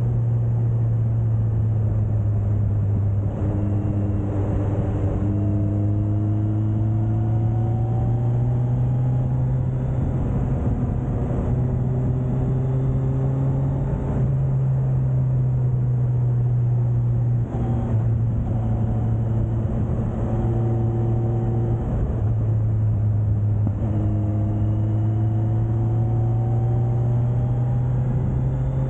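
Suzuki GSX1250FA's inline-four engine pulling on the road, its pitch rising steadily in four long stretches with short breaks between, over a steady low drone.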